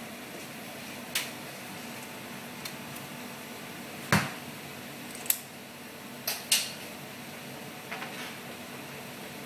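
A metal fork clinking and knocking against a stainless mesh pasta basket and pot while stirring spaghettini in boiling water: about seven scattered clinks, the loudest about four seconds in, over a steady hiss of bubbling water and kitchen background.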